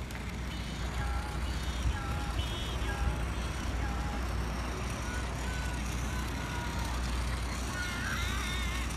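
City street ambience: a steady low rumble of traffic, with short high-pitched chirps scattered through and bunching together near the end.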